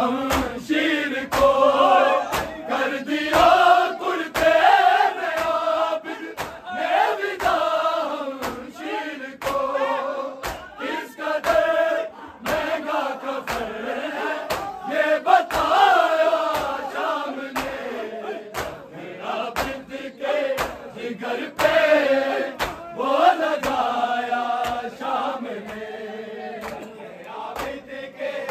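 A group of men chanting a noha in unison, the melody carried over a steady rhythm of sharp slaps from matam: hands beating on chests in time.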